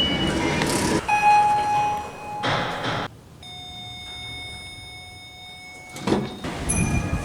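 A run of elevator signal tones from different lifts: a short high beep at the start, a chime about a second in, and a long steady tone from about halfway to near the end. Between them come short rushes of noise that fit lift doors sliding.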